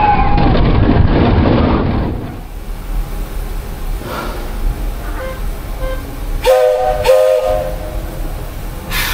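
Vintage narrow-gauge steam locomotive's chime whistle sounding two short blasts, each a chord of several tones, about two thirds of the way through. A hiss of steam starts near the end. A brief pitched intro sound fills the first two seconds.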